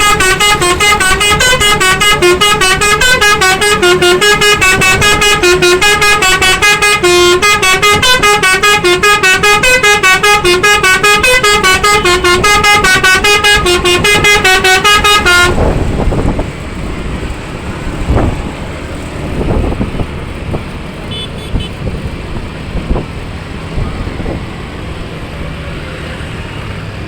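A bus's multi-tone musical air horn (klakson basuri) playing a fast, rhythmic melody of short, very loud notes, stopping abruptly about fifteen seconds in. After that only lower road and engine noise remains, with a few louder swells.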